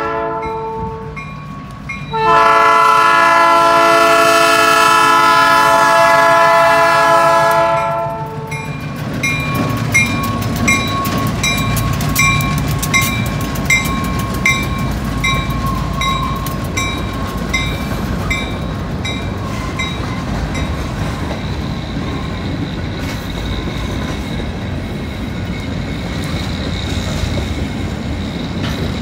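Cincinnati Eastern Railroad EMD GP15-1 locomotive's horn: the end of one blast, then a long blast of about six seconds. After it, the freight train's grain hoppers roll past with wheel clatter and the evenly repeating strokes of the grade-crossing bell.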